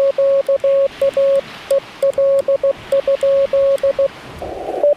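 Morse code sent from a Yaesu FT-891 with paddles, heard as the radio's steady, fairly high-pitched sidetone keyed in dots and dashes for about four seconds. Near the end the keying stops and the receiver's narrow band hiss comes back.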